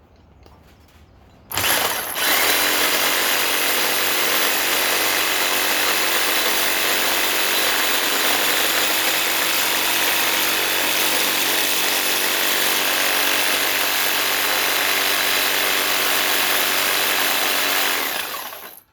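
Sawzall reciprocating saw cutting through steel pipe: it starts abruptly about a second and a half in, runs at a steady speed for about sixteen seconds, and winds down just before the end as the cut goes through.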